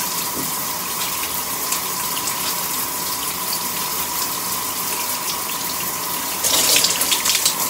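Shower water running steadily, an even spray and hiss with a faint steady high tone in it; about six and a half seconds in the water turns to louder, spattering splashes.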